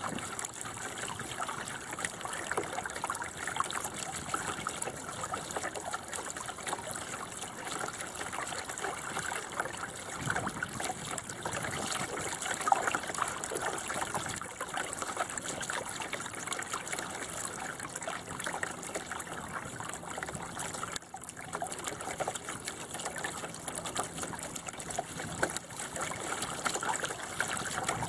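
Water trickling and gurgling along the hull of a small sailing dinghy, a 1988 Bauer 10, as it moves through the water: a steady, continuous splashing with no break.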